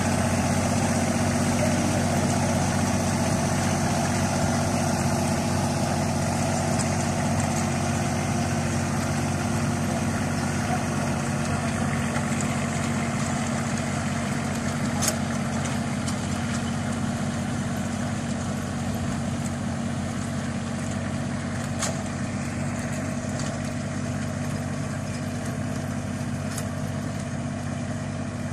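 Compact tractor's engine running steadily while it drives a rear-mounted rotary tiller through the soil, slowly fading a little as it moves away. A short click comes about halfway through.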